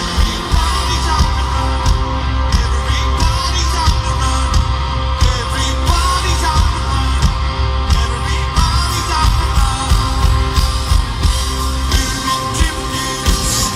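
Live rock band playing through a stadium PA with singing, recorded from within the audience. The bass is steady throughout.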